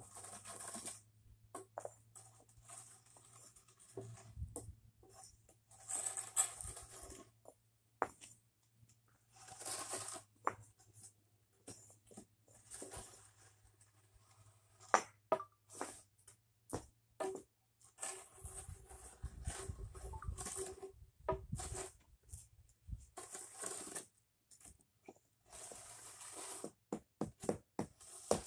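Short wooden board scraped in strokes across the sand bed under the pavers to level it, a gritty rasping, with scattered sharp clicks and knocks of concrete pavers being set in place.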